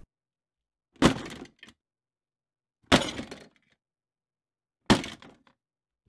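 Short impact sound effects from the edited sound library played back one at a time: three sharp hits about two seconds apart, each dying away within about half a second, some followed by a smaller knock.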